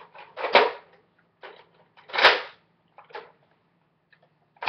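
A handful of short, sharp plastic clacks and rattles from a Nerf Longstrike CS-6 blaster as its clip is put in and the blaster is handled, the loudest about two seconds in.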